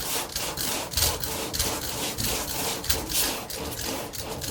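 Coarse 40-grit sandpaper being rubbed by hand over body filler in quick back-and-forth rasping strokes. The filler is still slightly wet and soft, not fully cured.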